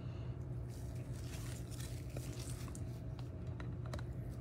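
Faint handling of a plastic magnetic one-touch card holder by gloved fingers, with light taps and rustles as the card is fitted and the clear lid positioned. A steady low hum runs underneath.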